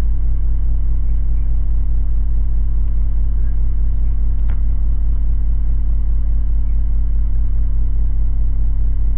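Deep, steady electrical hum that does not change, with a single faint click about four and a half seconds in.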